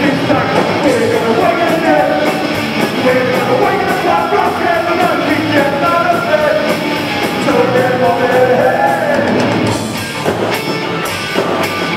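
Punk band playing live: electric guitars, bass and drum kit with a singer shouting into a hand-held microphone, recorded through a small camcorder's microphone in the crowd. The vocals stop about ten seconds in and the band plays on with a slightly lower level.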